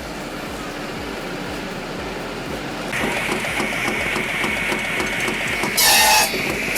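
Electric-motor-driven wood-chipping machine running, its heavy cutting wheel slicing wood into chips for wood-gas fuel. From about three seconds in it clatters regularly, about four strokes a second, over a steady high whine, with a brief loud burst near the end.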